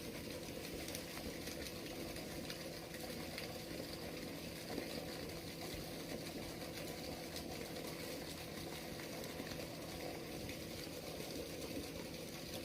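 Steady rush of water flowing out through a small seaside sluice gate on the ebbing tide, with a faint steady low hum underneath.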